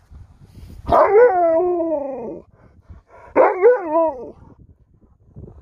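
Alaskan Malamute 'talking' back: two drawn-out vocal calls, the first about a second in, lasting about a second and a half and sliding down in pitch, the second shorter and wavering up and down.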